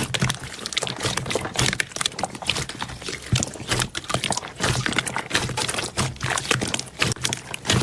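Slime being squished and worked, a dense, irregular run of wet clicks, crackles and squelching pops.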